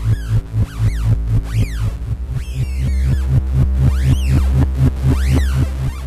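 Korg Opsix Native FM synthesizer playing a 'Motion' preset: a pulsing bass at about four pulses a second under a low held note, with repeated rising-and-falling sweeps in the upper range.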